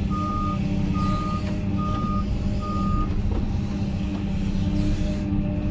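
Excavator's travel alarm beeping about once a second over its steadily running diesel engine as the machine travels. The beeping stops about three seconds in, and the engine runs on.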